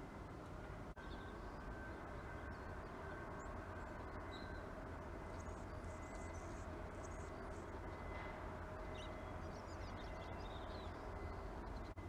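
Steady low hum of urban background noise, with faint, short chirps of small birds scattered through it and a brief dropout about a second in.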